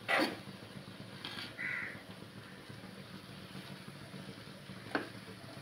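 A crow caws about a second and a half in, over a steady low hum. Short sharp sounds of a steel spatula working rice against a nonstick pan come at the very start, which is the loudest moment, and again near the end.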